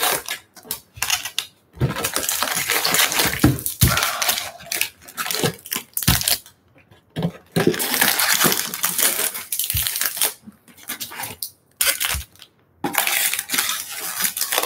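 Foil-wrapped trading card packs crinkling and rustling as they are pulled from a cardboard hobby box and set down. The sound comes in stretches of one to a few seconds, with short pauses and a few light taps between them.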